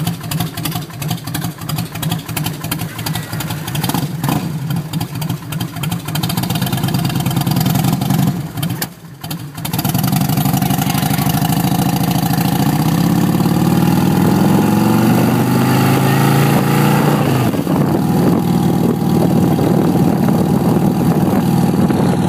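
Indian Chief motorcycle's V-twin engine running under way. About nine seconds in it dips briefly as at a gear change, then grows louder and climbs in pitch as the bike accelerates, with another drop in pitch near the end of the climb, as at the next shift.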